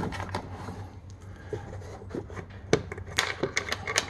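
Plastic push-pin clips and hard plastic dash trim being handled and pressed into place by hand: scattered clicks and taps with some rubbing, including a quick run of clicks about three seconds in.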